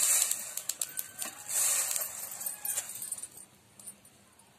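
Freshly roasted sesame seeds poured from an iron kadhai onto a steel plate: a dense rattling hiss of seeds pattering on metal, with scattered clicks, dying away after about two seconds.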